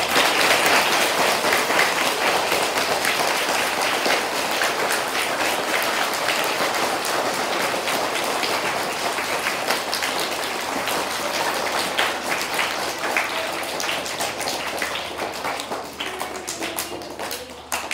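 Applause from a large audience of children: dense clapping that starts suddenly, holds steady, and dies away near the end.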